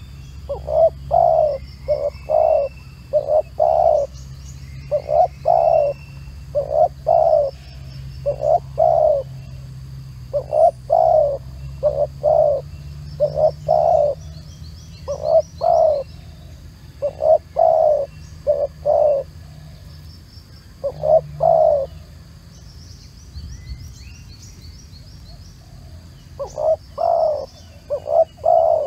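Spotted dove cooing: short phrases of two or three low coos, repeated every second or two, that stop for a few seconds and start again near the end. Small birds chirp faintly in the background.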